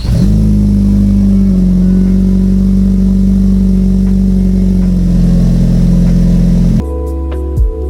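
Turbocharged Ford Focus ST engine running at high, nearly steady revs, cutting off suddenly near the end.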